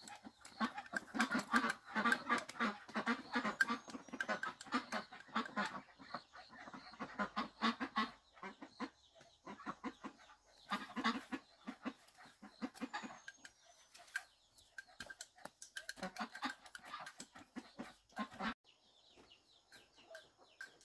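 Domestic ducks quacking in rapid runs of short calls, dense for the first eight seconds, then in shorter bouts, and dying down near the end.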